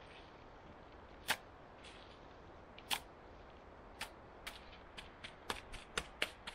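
Wet mud being scooped and squeezed by hand: short, sharp squelches and slaps, a few spaced out at first, then coming quicker from a little past halfway.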